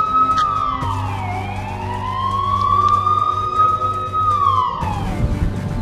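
A siren wailing: one tone that falls, climbs slowly back up, holds and falls again near the end, over a steady low hum.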